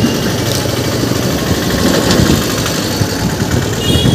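Street traffic on a rain-wet road: engines of passing auto-rickshaws and scooters running.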